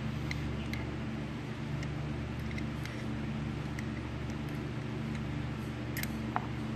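Small metal carburetor parts clicking and ticking lightly as they are worked into place by hand, a few scattered clicks with a sharper one near the end. A steady low hum runs underneath.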